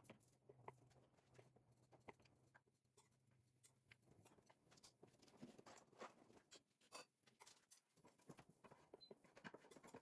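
Faint clicks and scrapes of a table knife and fork on a wooden cutting board as a child cuts up a thin egg omelette, with a low steady hum that stops about four seconds in.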